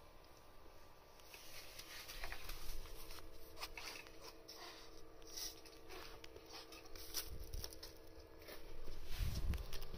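Soft scattered rustling and light tapping, as of cats moving on carpet close to a handheld phone, over a steady low electrical hum, with a dull low thump about nine seconds in.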